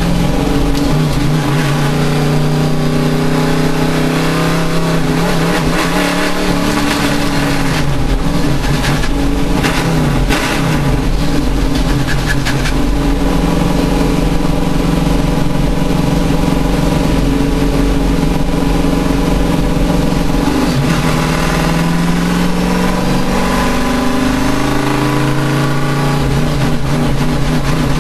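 Race car engine running hard, its pitch climbing and falling with the revs. It drops sharply about six seconds in and again about twenty-one seconds in, then climbs back up.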